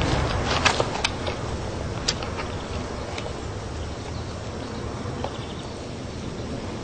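Jet aircraft engine noise dying away into a steady low rumble and hiss, with a few sharp clicks in the first two seconds.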